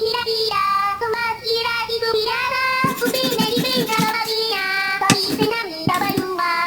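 A high-pitched, childlike voice singing a melody, with a beat of short sharp strikes joining in about three seconds in.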